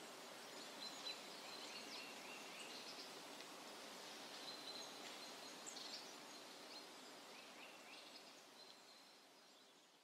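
Faint outdoor ambience: a steady hiss with birds calling in short chirps and whistles, fading out near the end.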